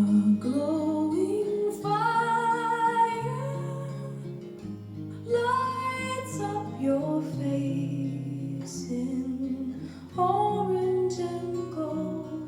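Recorded music played back through a hi-fi amplifier and loudspeakers: a woman singing over acoustic guitar with sustained bass notes.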